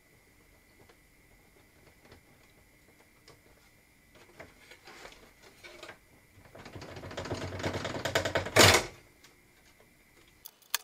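Hands handling computer hardware and cables: light rustling, then a quick run of clicks and rattles that builds to a loud clatter and stops.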